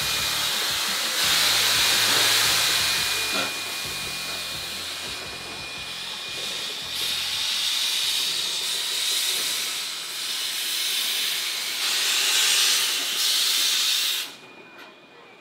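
Victorian Railways K class steam locomotive K163 hissing steam as it moves its train along, the hiss swelling and easing in stretches and cutting off suddenly near the end.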